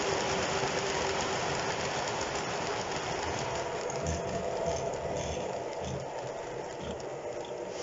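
O scale three-rail model passenger cars rolling past on the track with a steady rumble of wheels on rail, a few low knocks in the second half, easing slightly in level as the train runs into the tunnel.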